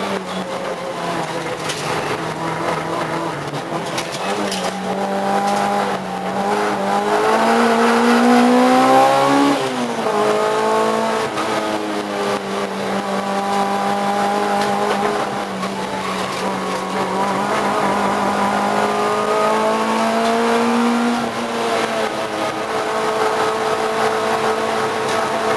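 Race car engine heard from inside the cockpit, pulling hard at high revs. Its pitch climbs steadily and then falls off sharply, twice.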